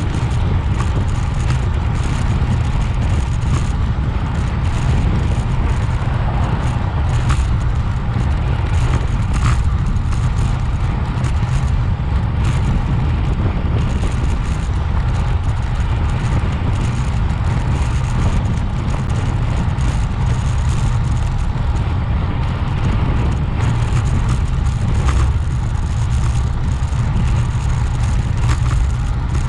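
Wind rushing over the microphone of a bicycle ridden at speed: a steady, heavy low rumble with occasional faint clicks.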